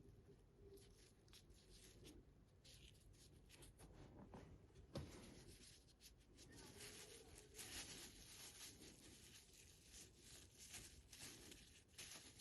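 Faint, irregular rubbing and scratching as Tru-Oil finish is worked into a wooden kitchen-knife handle, with one light tap about five seconds in.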